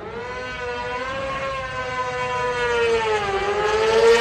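A racing sidecar engine revving hard with a high, whining note. It climbs in pitch at first, holds high revs, sags a little about three seconds in, then climbs again as it gets louder.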